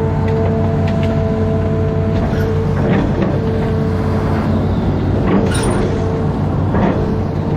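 Amphibious excavator's diesel engine running steadily with a steady whine over it, and a few short knocks scattered through.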